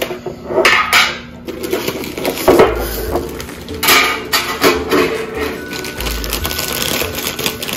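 Cardboard popcorn canister being opened: the lid pulled off with a few sharp clicks and scrapes, then a foil inner bag crinkling as it is lifted out and handled.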